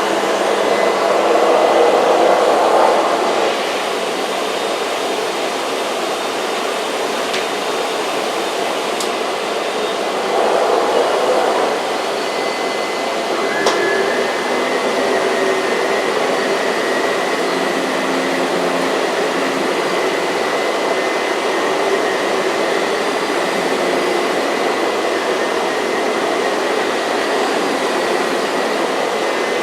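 Miele S234i canister vacuum with a Sebo ET-1 electric powerhead running on a rug: a steady rushing suction noise with a thin high whine over it. It swells louder briefly about two seconds in and again about ten seconds in.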